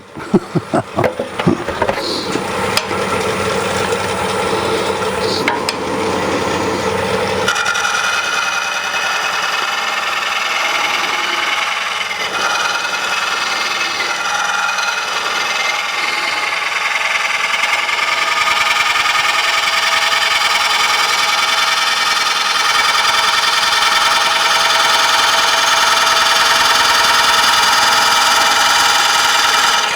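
Gouge cutting into a spinning green-wood bowl blank on a wood lathe, a steady shearing hiss as the bowl is roughed out. About seven seconds in, the sound turns higher and more even, and it grows a little louder toward the end.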